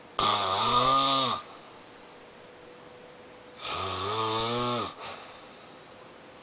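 Snoring: two long snores, each a little over a second long and about three and a half seconds apart. Each has a low, pitched, rattling tone that wavers slightly. The first snore is louder than the second.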